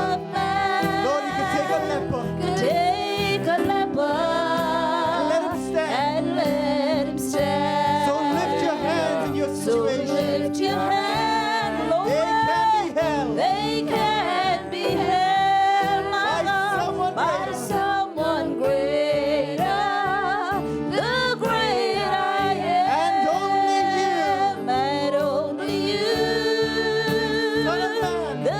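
Gospel worship music: a sustained accompaniment with a steady beat, and a singer ad-libbing wordless, melismatic vocal runs over it.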